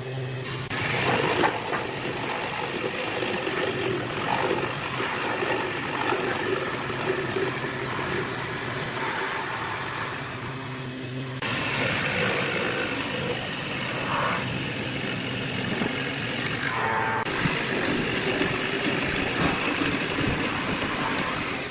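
An electric woodworking power tool running and working wood, a steady dense machine noise with a low hum that dips briefly about halfway through and shifts again later.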